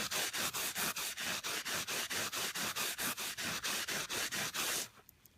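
Fine scouring pad rubbed rapidly back and forth along a stainless steel watch bracelet, about five hissing strokes a second, stopping abruptly near the end. The pad is smoothing the satin finish along the grain after a rougher pad was used to take out scratches.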